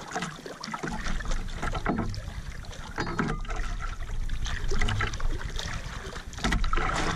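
Seawater splashing and sloshing against the hull and outrigger of a small outrigger canoe, in uneven splashes, over a low rumble of wind on the microphone.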